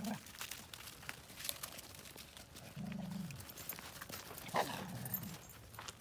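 Dogs playing in snow: a dog gives a short, low vocalisation about three seconds in and a brief one again about a second and a half later, among scattered light footstep clicks.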